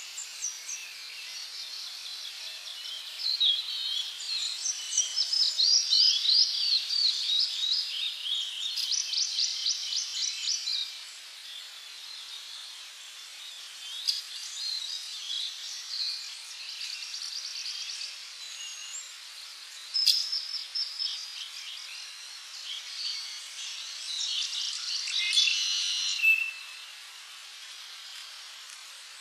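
Several tropical birds chirping and trilling over a steady insect hiss, with quick rapid-fire notes and short whistles coming in bunches, busiest early on and again near the end.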